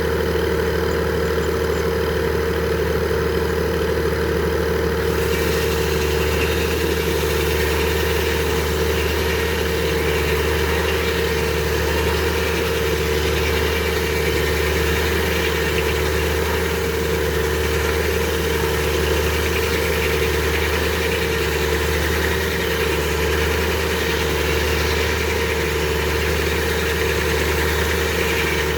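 Frick sawmill running steadily under its power unit, a constant engine hum with a steady whine from the spinning mill; about five seconds in a brighter, hissier sound joins and holds.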